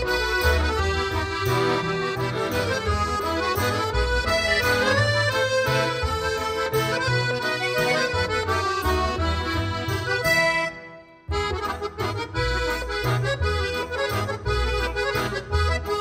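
Instrumental background music led by an accordion over a steady bass beat. The music cuts out for about half a second about two-thirds of the way through, then carries on.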